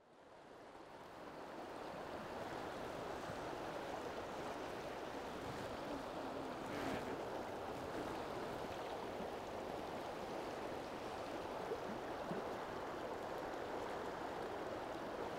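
Rushing river water, a steady even rush that fades in over the first couple of seconds. The river is running high and fast over riffles.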